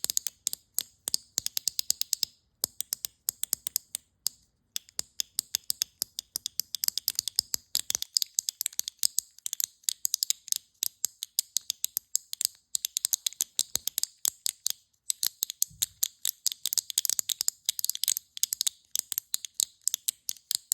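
Close-miked ASMR clicking: rapid, irregular runs of crisp high clicks, several a second, broken by short pauses.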